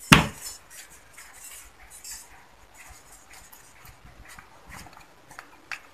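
Screwdriver working the small Phillips screws on a Yamaha Autolube two-stroke oil pump cover: one sharp metal click at the start, then faint scattered ticks and scrapes of the tip on the screws, and another small click near the end.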